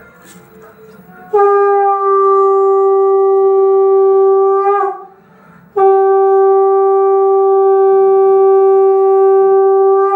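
Conch shell (shankha) blown in two long, steady, loud blasts, the first about three and a half seconds long, the second about four and a half, with a short gap between. Each blast ends in a brief wavering break in pitch. It is the auspicious conch call of a Bengali Hindu ritual.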